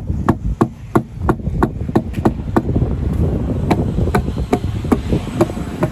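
A tamping pole ramming wet concrete into a steel ring mould, knocking about three times a second, some knocks ringing briefly.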